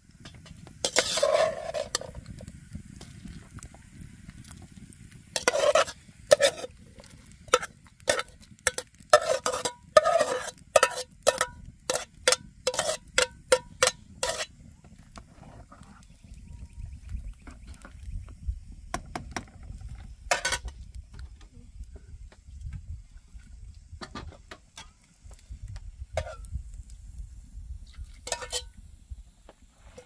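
A metal spoon stirring a pot of boiling soup, clinking and scraping against the pot in a run of sharp knocks, thickest in the first half, over a low steady rumble.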